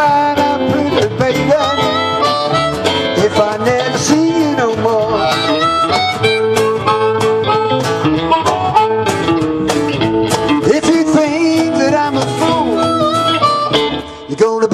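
A blues band playing an instrumental passage, led by a harmonica with bending notes over acoustic and electric guitar, upright double bass and cajon. The music dips for a moment near the end.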